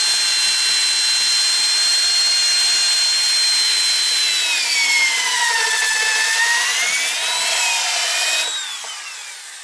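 Corded electric drill boring a hole into a wooden door header: a steady high motor whine that drops in pitch for a few seconds in the middle as the bit bites, then picks back up, and winds down once the trigger is released near the end.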